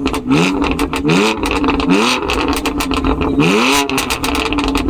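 BMW M4's twin-turbo straight-six revved in a series of short blips, with sharp exhaust pops and crackles between and over them, and a longer rev near the end.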